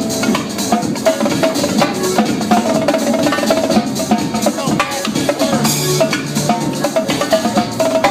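Live drum kit, a Mapex kit, played in a fast, steady rhythm over electronic dance music.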